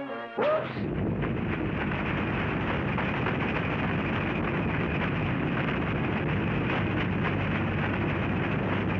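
Cartoon sound effect of a snowball rolling down a mountainside: a steady rushing rumble, with a short rising whistle just before it begins.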